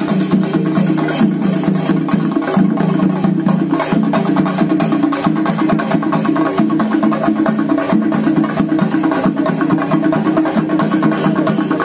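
Procession music with fast, dense drumming: sharp cracking strokes in quick succession over a steady sustained tone.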